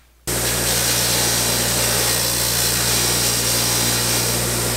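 Delta Thin-Line bench grinder running with a wire wheel fitted: a steady motor hum under a loud, even hiss. It cuts in abruptly just after the start.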